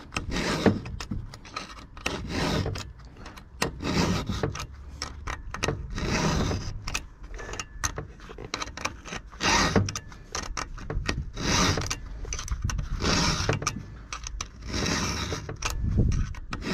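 A 5.5 mm round file rasping across the cutters of a .404 semi-chisel chainsaw chain in a filing guide, sharpening it. There are about nine strokes, roughly one every one to two seconds, with a longer pause near the middle as the file is lifted and the chain moved on to the next tooth.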